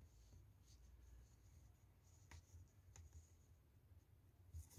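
Near silence: a few faint ticks and soft rustles from hand-crocheting yarn with a hook.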